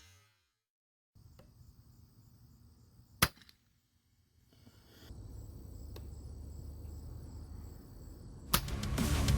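A single sharp shot from an FX Impact air rifle about three seconds in, with a fainter click a few seconds later over low background noise. Music comes in near the end.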